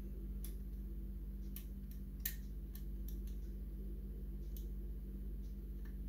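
Lock pick and tension wrench working the pins of a night latch's pin-tumbler cylinder, giving small irregular clicks, the sharpest a little past two seconds in, over a steady low hum.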